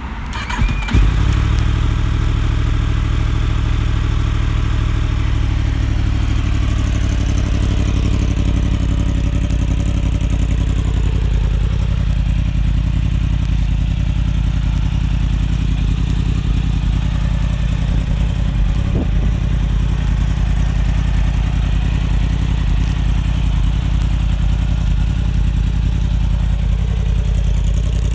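2016 Yamaha YZF-R1 with its 998 cc crossplane inline-four catching and starting about a second in, then idling steadily.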